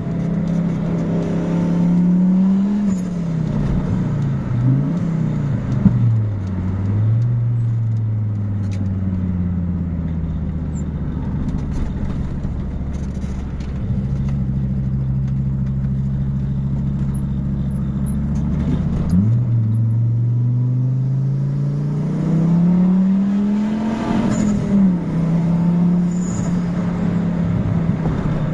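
Fiat Marea 2.0 20-valve turbocharged five-cylinder engine running under changing throttle: its pitch rises and drops several times in the first few seconds, sinks slowly for a long stretch, then climbs for several seconds before dropping sharply and settling to a steady run.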